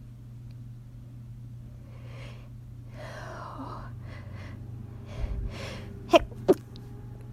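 A woman's gasping inhales building up over a few seconds, then two stifled sneezes in quick succession, short and sharp.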